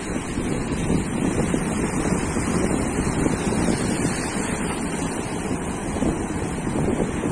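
Ocean surf washing on a beach, steady and continuous, with wind buffeting the microphone.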